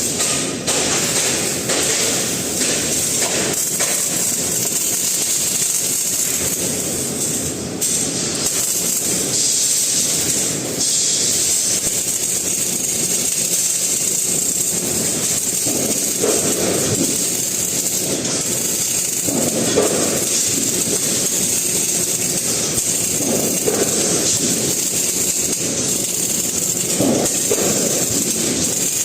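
MIG welding arc burning continuously: a steady crackling, frying hiss.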